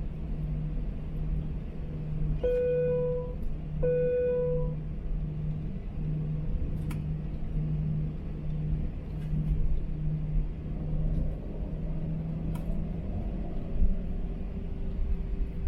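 Steady low rumble inside an Airbus A321 cabin from the running engines, with a low hum that pulses about once a second. Two short identical electronic chime tones sound a little over a second apart, about two and a half seconds in.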